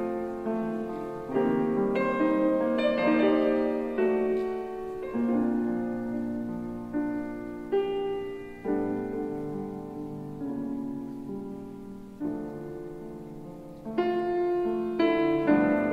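Slow, gentle solo piano music: chords and single notes struck every second or two and left to ring and fade, with a fuller run of notes near the end.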